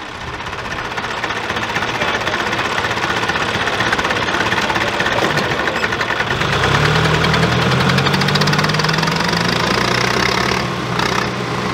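Diesel engines of a John Deere 5036 D and a Hindustan HWD50 tractor pulling hard against each other on a chain in a tug-of-war, with a fast, clattering diesel knock. About six and a half seconds in, a deeper, steady engine note comes up and holds.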